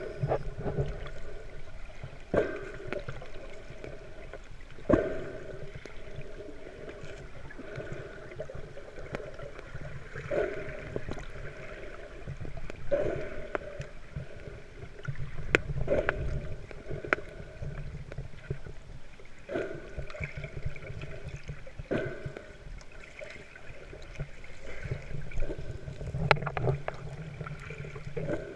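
Muffled underwater sound from swimming with a camera in a waterproof housing: a steady low rumble of moving water, with a whooshing swell every two to three seconds and a few sharp clicks.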